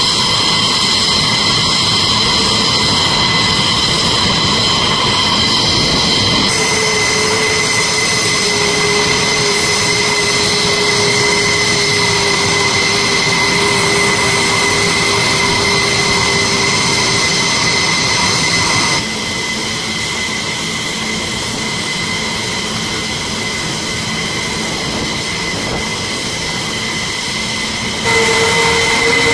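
Jet engines whining steadily on a flight line: a loud, even roar with several high tones held over it. The mix of tones changes abruptly a few times, at cuts between shots.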